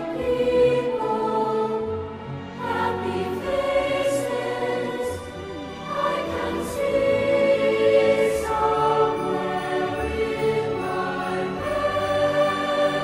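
Background music: a choir singing sustained, slowly changing chords.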